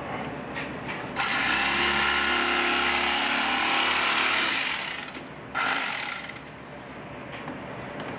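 Electric carving knife running as its reciprocating blades slice through raw beef for jerky strips. It buzzes with a steady motor hum for about three and a half seconds, stops, then a shorter burst of noise follows about a second later.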